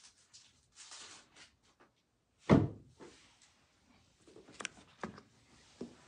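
A door thudding shut about halfway through, followed by a few lighter knocks and clicks.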